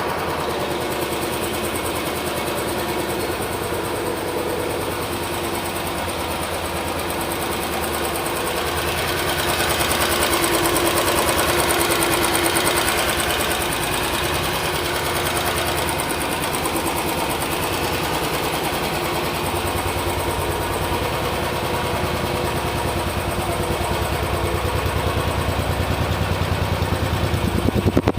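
Royal Enfield Bullet 350 BS6 EFI single-cylinder engine idling steadily through its stock exhaust. About ten seconds in it gets a little louder for a few seconds, then settles back.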